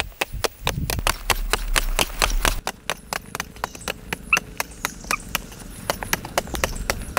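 Hoes chopping into hard, dry earth: a fast, uneven run of sharp strikes, several a second, from two men digging side by side.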